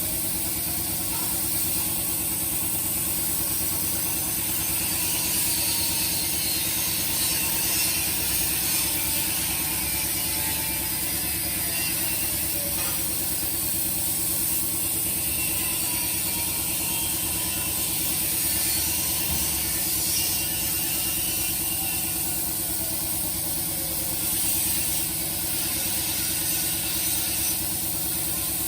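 CNC plasma cutter working on 1 mm steel plate: a steady hiss, with a steady low hum underneath and faint tones that rise and fall.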